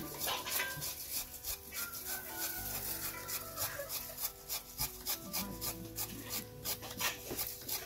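Bundles of dry brush rustling and crackling as they are handled and laid onto a pile, many small sharp crackles in quick succession.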